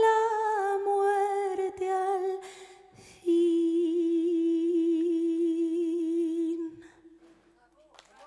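A woman singing unaccompanied, with no words: a long held note with vibrato that fades out, then after a short break a lower note held for about three seconds before it trails away.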